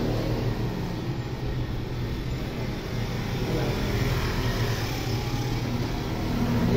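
Steady low mechanical hum that holds even throughout, with faint voices in the background.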